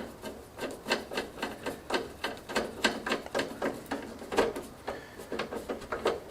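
Irregular run of small clicks and taps, about three or four a second, from hands working on parts inside a PC case.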